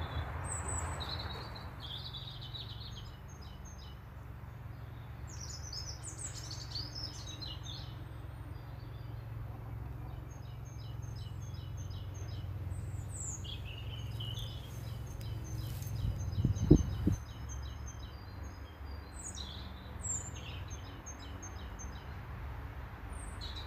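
Several small songbirds chirping and singing in short phrases throughout, over a steady low rumble. About seventeen seconds in come a few close, loud thumps.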